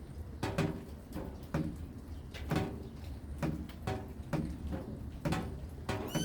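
Rainwater dripping in a loose rhythm, about one or two drops a second, each landing with a short hollow knock on a resonant surface, over a steady low hum.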